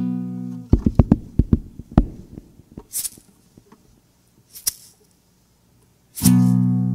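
Acoustic guitar music: a strummed chord rings out, then a quick run of single plucked notes and a few sparse ones, a brief pause, and another strummed chord near the end.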